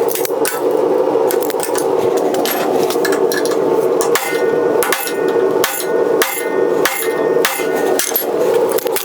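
Hand hammer striking steel on an anvil in a steady rhythm, about one and a half blows a second, some blows leaving a short metallic ring, over a steady rushing noise.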